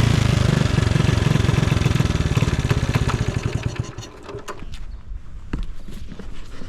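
Honda Super Cub 70's small single-cylinder four-stroke engine settling to a fast, even idle, then dying away about four seconds in, followed by a few light clicks. The seller describes the engine as free of any odd noises.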